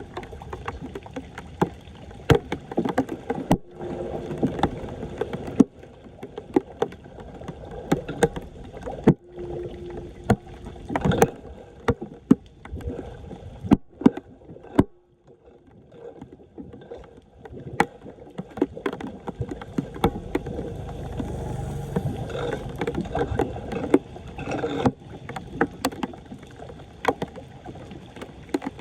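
Floodwater splashing and sloshing, with many sharp knocks and scrapes, from debris being cleared off a clogged street drain. The sound breaks off abruptly several times.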